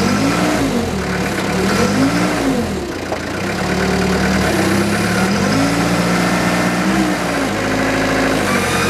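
6,000 lb TCM forklift's engine running, revving up and falling back several times as the operator works the mast's hydraulic levers: two short revs in the first few seconds, then a longer one later on.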